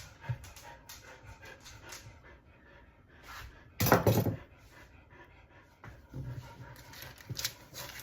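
A dog panting, with a louder, brief burst of noise about four seconds in.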